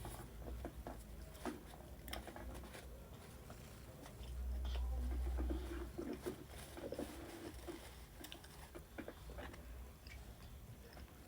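Close-miked chewing and eating mouth sounds: many small wet clicks and smacks. A louder low rumble comes in for about a second and a half near the middle.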